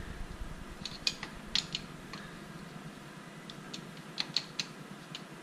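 Faint, irregular metallic clicks and clinks of two open-end wrenches on the rocker-arm adjuster and lock nut of a Datsun L-series engine, as a 17 mm wrench is fitted to the lock nut while a 14 mm wrench holds the adjuster still, to lock in the valve lash setting.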